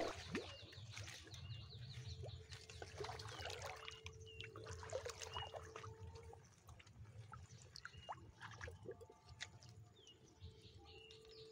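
Faint splashing and trickling water as a bamboo-framed push net is worked through shallow water among water hyacinth, with small birds chirping.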